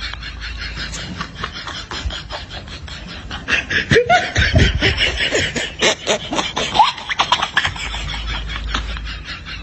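Laughter sound effect: a person laughing in short choppy bursts, loudest in the middle few seconds.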